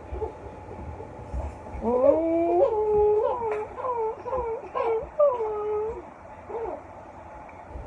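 A high, wavering whining cry lasting about four seconds: it slides up at first, then moves in short pitch steps before trailing off.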